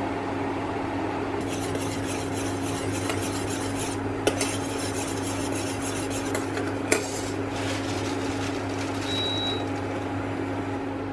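Metal spoon stirring and scraping in a stainless steel saucepan of soy-and-chili sauce as it comes to a boil, with two sharper clinks of the spoon on the pot, over a steady hum.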